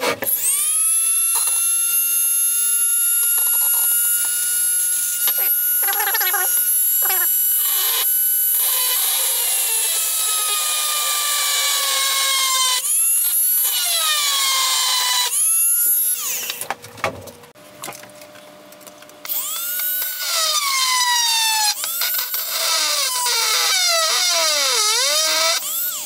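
Handheld rotary tool with a small twist drill bit drilling a pilot hole into the metal shoulder of a hand warmer's fuel reservoir. Its high whine holds steady, then sags in pitch as the bit bites. It stops and starts several times, is off briefly about two-thirds of the way through, then runs again with the pitch dropping and rising.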